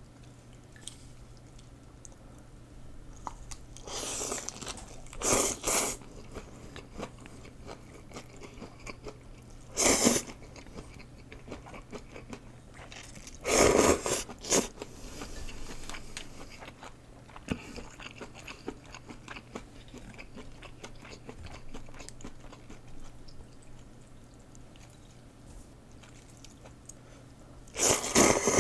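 A person slurping rice noodles and chewing close to the microphone: a few short loud slurps spread through, the last near the end, with quieter wet chewing between.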